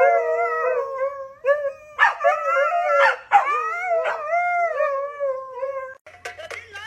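Dog howling: a run of long, wavering howls with short breaks, stopping about six seconds in.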